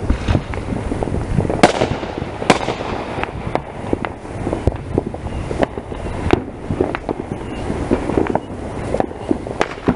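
Fireworks going off: an irregular run of bangs and pops, the two loudest about one and a half and two and a half seconds in.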